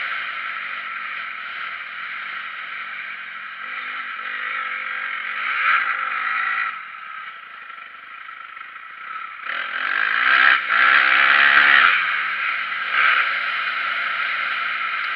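Motocross dirt bike engine revving up and down while being ridden on a track, with the throttle backed off briefly and opened hard again about ten seconds in. A steady rushing noise runs underneath.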